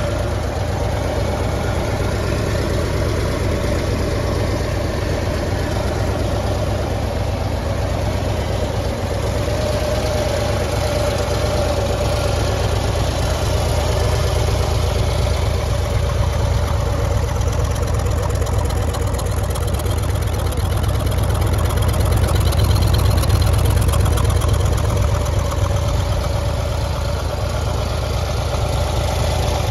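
Harley-Davidson FLHTC Electra Glide Classic's air-cooled V-twin idling steadily.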